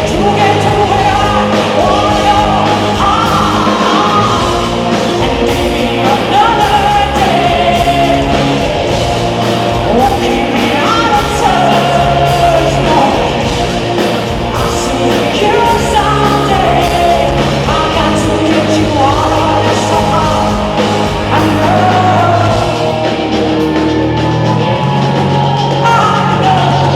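Live band playing a rock song with a female lead vocal, singing a gliding melody over drums and sustained bass, loud and continuous.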